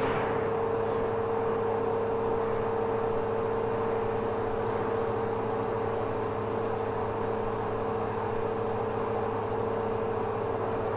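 Vacuum cleaner running with a steady whine through its hose wand, with crackling rattles of small bits of debris being sucked up the tube, about four seconds in and again toward the end.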